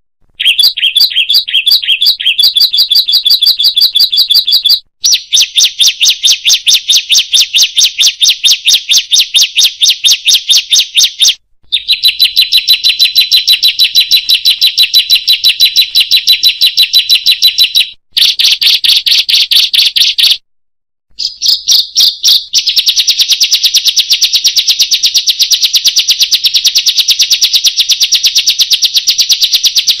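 Ciblek songbirds singing: loud, high, rapid chattering chirps repeated many times a second in long runs. The runs are broken by a few abrupt cuts, as in an edited masteran training recording of the birds' song.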